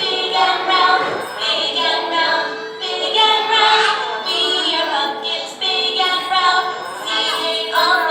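A song playing: a sung melody over backing music.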